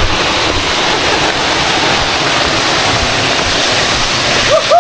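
Waterfall: a steady, loud sound of falling water. Near the end a person's voice rises into a long "woohoo" shout.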